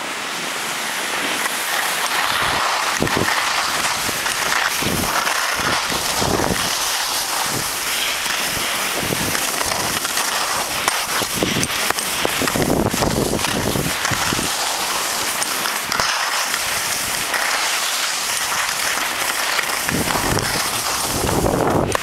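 Skis scraping and hissing over snow while skiing down a mogul run, with wind rushing over the microphone and irregular low buffeting as the skier goes over the bumps.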